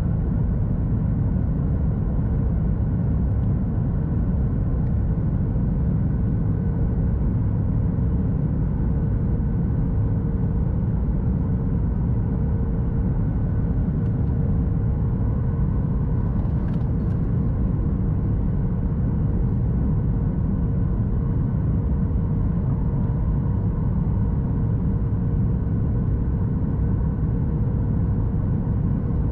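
Steady cabin noise inside a Boeing 737 MAX 8: a deep rumble of its CFM LEAP-1B engines and airflow, with a steady hum running over it.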